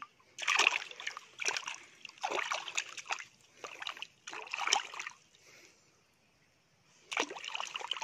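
A hand swishing a broken rock back and forth in shallow water, washing it: a run of short splashes, a pause of a couple of seconds, then splashing again near the end.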